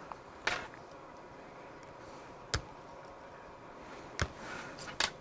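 A few sharp, irregular clicks and light scraping of a small metal pick tool working inside the end of a Traxxas Velineon brushless motor, prying out pieces of the old bearing stuck in the aluminum housing.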